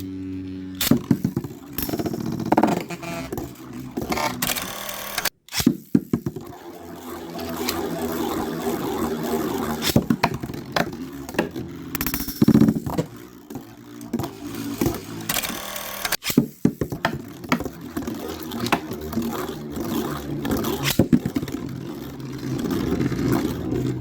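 Spinning Beyblade tops whirring and scraping in a plastic stadium, with frequent sharp clacks as they collide. The sound cuts out abruptly twice, after about five seconds and again near sixteen seconds.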